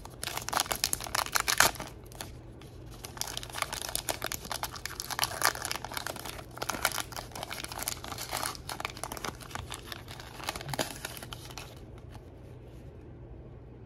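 Foil wrapper of a trading-card pack crinkling and tearing as it is pulled open by hand, loudest in the first couple of seconds and dying away near the end.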